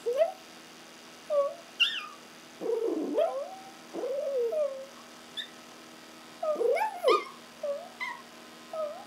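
Two Chihuahuas howling, a string of short wavering howls and squeaky yips, each rising and falling in pitch, with the longest calls near the middle and again near the end.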